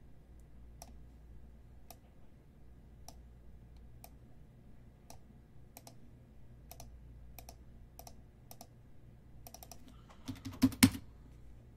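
Clicking at a computer keyboard and mouse: single sharp clicks about once a second, then a fast run of louder keystrokes and knocks near the end.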